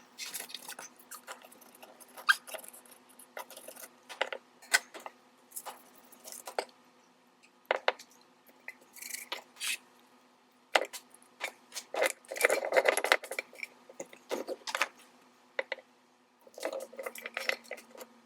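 Spice jars and baking-supply containers being handled and set down on a cabinet shelf: irregular light clicks, taps and clinks, with a busier stretch of clattering about two-thirds of the way through.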